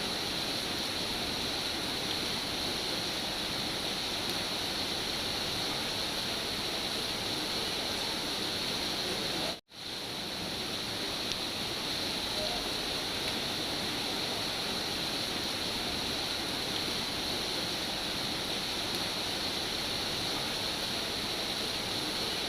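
Steady heavy rain, an even wash of noise without pauses. About ten seconds in it drops out for an instant and fades back in, like the seam of a looped rain track.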